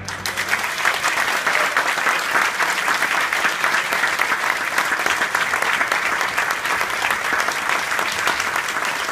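Concert audience applauding: many hands clapping in a dense, steady patter.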